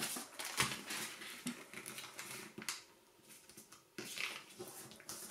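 Origami paper being folded and its crease pressed flat by fingers: irregular crinkles, rustles and small taps, with a louder rustle about four seconds in.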